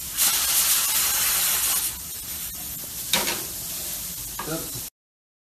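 Sizzling from a hot frying pan as a tossed flatbread lands back in it: loud for about two seconds, then lower, with a second short burst about three seconds in. The sound cuts off suddenly near the end.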